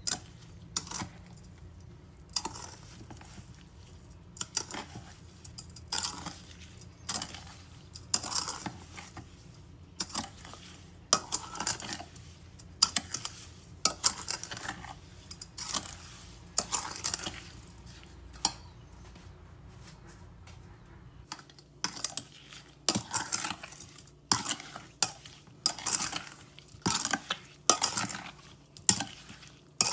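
Metal spoon stirring and scraping mixed berries and brown sugar around a stainless steel bowl, in repeated clinking strokes roughly once a second, with a short lull about two-thirds of the way through.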